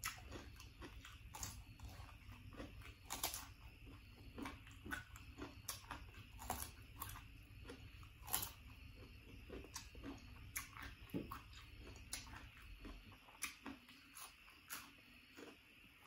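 Raw carrot being bitten and chewed close to the microphone: irregular crunches, one to a few a second.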